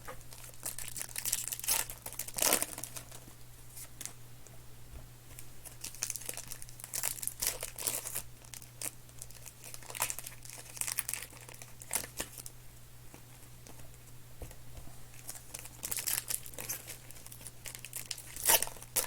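Trading card pack wrappers being torn open and crinkled, with cards handled between, in irregular bursts of crackling.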